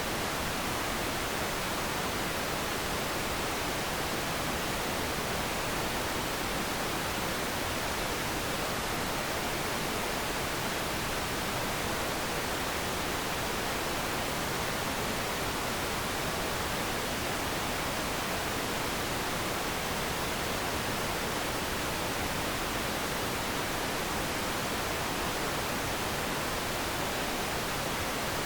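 Television static: a steady, even hiss of white noise with no breaks or changes.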